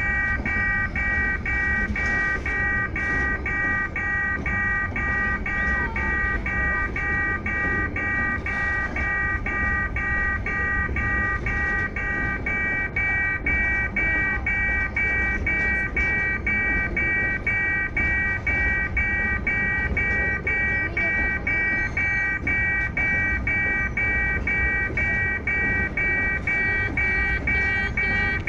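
Level-crossing warning bell ringing steadily, about two strokes a second, over the low rumble of a loaded freight train's hopper wagons rolling past.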